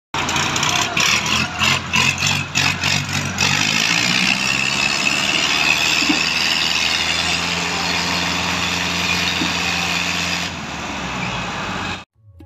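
Tractor engines running as the tractors pull loaded trolleys along a road, a steady engine drone with a run of rattling knocks through the first three seconds or so. The sound cuts off just before the end.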